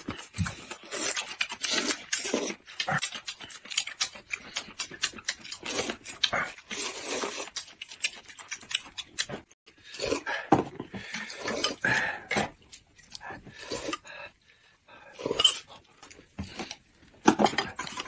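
Close-miked wet chewing, lip-smacking and sucking on sauced deboned chicken feet: a quick, uneven stream of short smacks and clicks with brief pauses.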